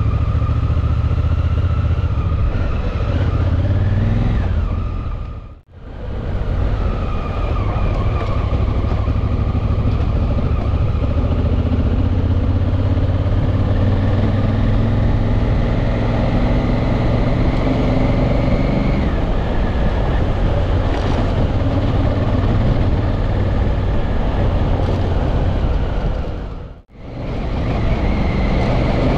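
Honda Africa Twin's parallel-twin engine running at road speed while riding a dirt road, with wind and tyre rush on the mounted camera. The engine's pitch climbs slowly and drops back a few times. The sound fades out briefly twice, about six seconds in and near the end.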